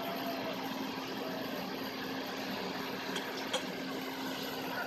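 Rice combine harvester's engine running steadily while the machine is bogged down in deep paddy mud and cannot drive out.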